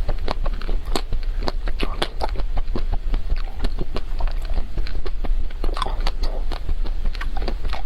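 Close-miked biting and chewing of a chocolate-coated ice cream bar: quick, irregular crackles and clicks as the chocolate shell breaks in the mouth, over a steady low hum.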